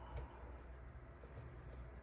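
A lock pick working the pins of a dimple lock cylinder: one sharp click just after the start, then a few faint ticks.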